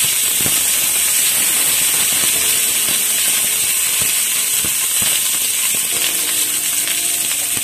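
Shallots, garlic and curry leaves sizzling in hot oil in a nonstick pan, a steady hiss, with a few light taps of a silicone spatula as it stirs.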